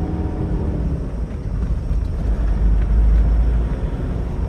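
Toyota Innova diesel engine running with a steady low drone and whoosh from the radiator fan, swelling in the middle. The fan's fluid coupling (fan clutch) is stuck too tight, which makes the fan run heavy and means it needs replacing.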